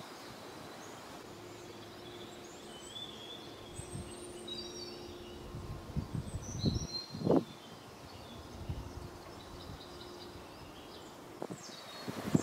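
Small birds chirping with short high calls scattered throughout. A few soft thuds and rustles of footsteps on dry earth come around the middle, the loudest a little past halfway.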